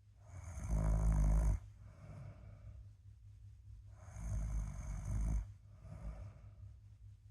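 A person snoring in sleep: two deep snores, each about a second and a half long and about four seconds apart.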